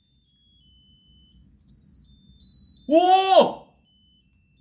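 Musical lotus birthday candle's tiny electronic buzzer playing a thin, high-pitched tune, a few notes stepping down. About three seconds in, a man lets out a loud, drawn-out 'ooh' of amazement over it.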